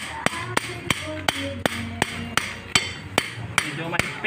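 Steady metal hammering, sharp even blows at about three a second.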